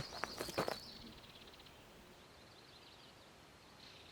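Quiet outdoor night ambience with a high, rapid chirping trill throughout, and a short cluster of sharp crackling clicks in the first second.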